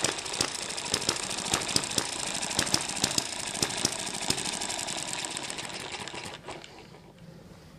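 M94 model hit-and-miss engine running, with sharp firing pops at uneven intervals over its steady mechanical clatter: the governor lets it fire only when its speed drops. About six seconds in, the engine winds down and stops.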